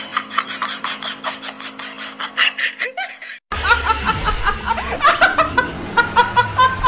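A quick, even run of clicks, several a second, over a low hum. It cuts off about three and a half seconds in, and a young woman laughs hard in repeated high-pitched bursts.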